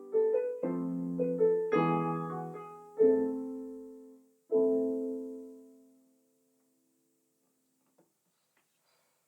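Background piano music: a few slow chords, the last one left ringing and fading out about six seconds in, followed by near silence.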